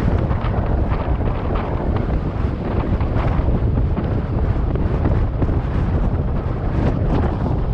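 Strong wind buffeting the microphone in a steady low rumble.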